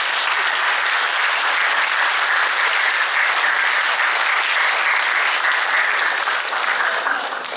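Congregation clapping in sustained applause, steady throughout and fading out near the end.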